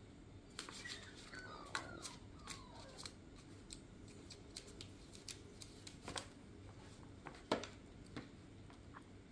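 Light scattered clicks, taps and scratches of kittens moving and pawing in a plastic tub and among foam puzzle blocks, with sharper taps about two seconds in and again about seven and a half seconds in. Two faint falling squeaks come about a second in.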